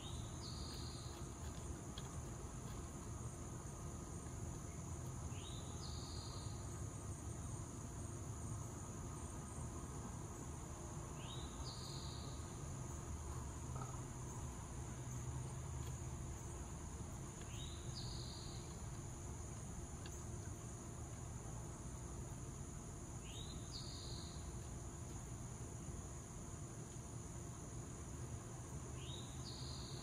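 Steady high-pitched chorus of insects trilling, with a short rising call repeated about every six seconds over a low rumble.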